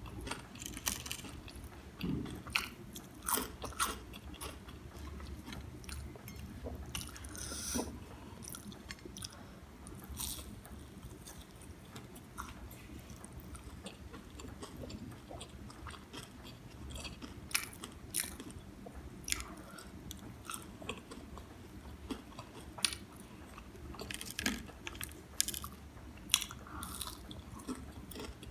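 Close-miked crunching and chewing of crispy fried vegetable pakoras (gram-flour fritters), with irregular sharp crunches between stretches of softer chewing.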